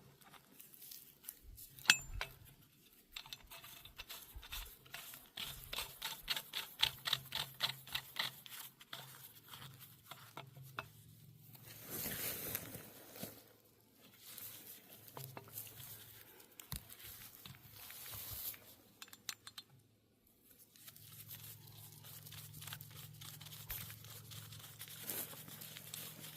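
Faint hand-assembly of a 60mm mortar's metal bipod clamp: light clicks and scrapes as a set screw and handle are threaded in, with a run of quick, evenly spaced clicks a few seconds in and short rustling scrapes later. A low steady hum sits underneath.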